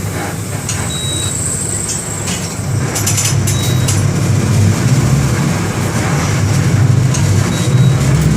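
Mercedes-Benz OF-1721 BlueTec 5 bus's OM-924 LA four-cylinder inline diesel running with a low steady drone. It grows louder over the first five seconds or so, then holds steady.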